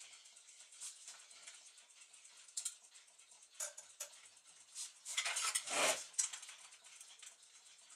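Screwdriver and fingers working on a Gustav Becker clock's brass movement: light metallic clicks and rubbing, with a louder scraping clatter about five seconds in that lasts about a second.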